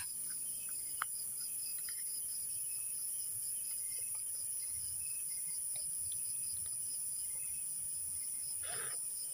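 Night insect chorus, a steady high-pitched drone of crickets, with one faint click about a second in.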